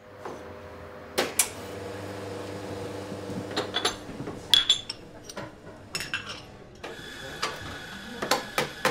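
Crockery and cutlery clinking and knocking behind a café bar counter, a string of sharp clinks at irregular intervals over a steady background hum.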